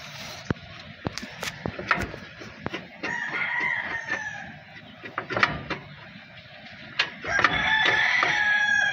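A rooster crowing twice, first about three seconds in and again, louder, near the end, each crow lasting a second or so. Sharp clicks and knocks of hand tools sound between and under the crows.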